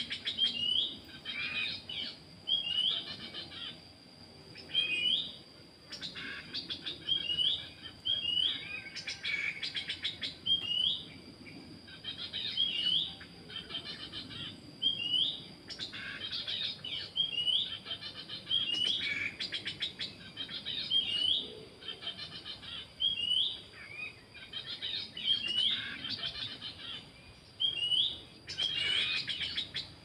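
Black-capped babbler calling: a short hooked whistle repeated about once a second, with bursts of rapid chattering notes between them, over a steady high-pitched tone.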